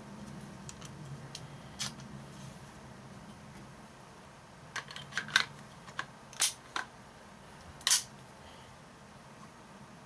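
Sharp metal clicks and clacks as an AR-15 lower receiver is fitted onto its upper receiver: a few light clicks, a quick run of clicks about halfway, then two louder clacks, the loudest about three-quarters of the way through.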